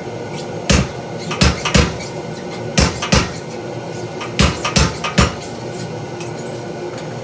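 Sharp metal-on-metal clanks of steel blacksmithing tools and stock, eight of them in three quick clusters of two or three.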